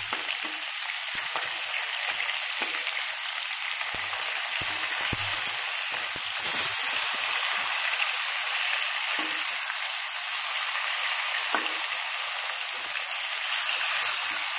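Pieces of rohu fish sizzling in hot oil in a metal wok, a steady hiss, with the scrape and knock of a spatula turning the pieces now and then. The sizzle swells briefly about halfway through.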